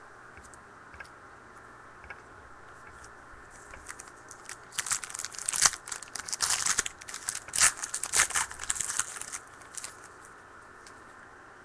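A trading card pack wrapper torn open and crinkled by hand, a run of sharp crackling rustles lasting about five seconds, starting around four and a half seconds in.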